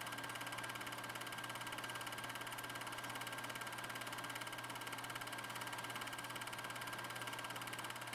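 16mm film projector running: a steady mechanical whir with a fast, even flutter from the film-advance mechanism and a constant low hum, unchanging throughout.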